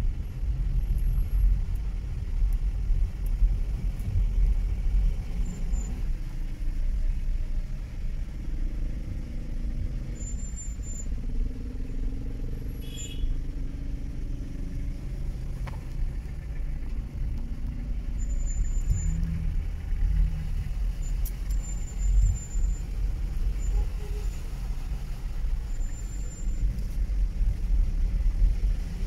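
Inside a car moving slowly through a flooded street: a steady low rumble of engine and tyres in the water, with the traffic around it.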